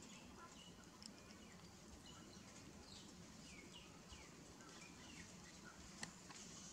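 Near silence: a faint outdoor background, with a run of four or five short, faint, falling chirps about halfway through and one or two faint clicks.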